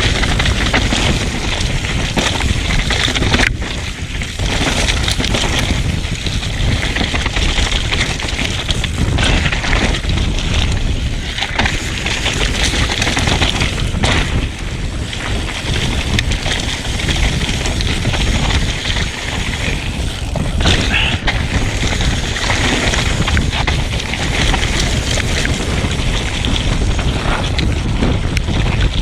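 Mountain bike descending a dirt trail at speed: tyres running over dirt and rock, with the bike knocking and rattling over bumps, and wind rumbling on the microphone.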